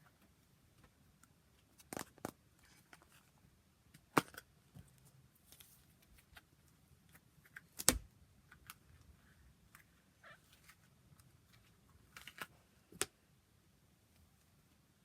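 Fidget toys being handled: a scattered run of small clicks and taps at irregular intervals, the loudest about eight seconds in, with a quick cluster of clicks near the end.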